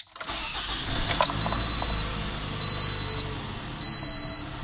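A car's dashboard warning chime beeping in a steady high tone, about one beep every 1.2 seconds, over a 2007 Toyota RAV4's four-cylinder engine. The engine catches just after the start and idles on freshly fitted spark plugs. Its idle is not yet settled, because the ECM has to relearn it after the plug change.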